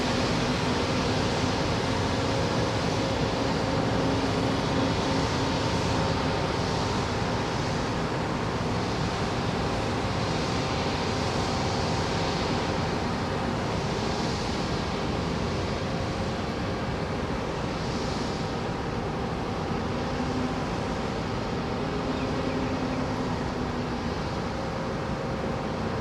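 Steady rushing of wind and sea, with the hiss swelling now and then, over a low steady hum of ship engines.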